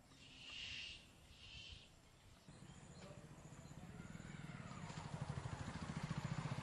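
A bird calls twice, each call short, in the first two seconds. Then a low engine throb with a rapid pulse starts about midway and grows steadily louder to the end.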